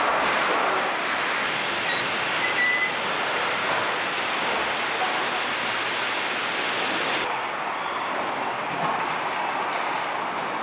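Truck assembly plant floor noise: a steady, even wash of machinery and air noise from the stamping and body-shop equipment. About seven seconds in its character changes abruptly, losing the highest hiss.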